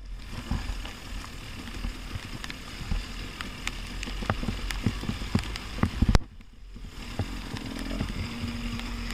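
Husqvarna TX 300 two-stroke enduro bike running along a muddy trail, heard from a camera mounted on the bike, with rain and mud spattering and many sharp knocks on the camera housing. The sound drops out briefly just after six seconds in, following a loud knock, and a steady engine note comes through near the end.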